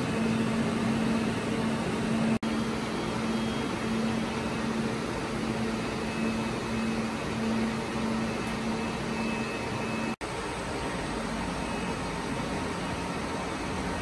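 Steady fan noise of running rack-mounted HP servers and disk arrays, an even hiss with a low hum under it. It breaks off for an instant twice, and after the second break the hum is gone.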